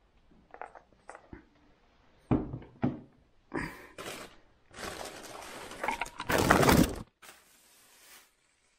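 Cycling parts, boxes and plastic-wrapped bits being handled on a tabletop: several light knocks and thunks, then about two seconds of noisy handling sound, loudest near the end.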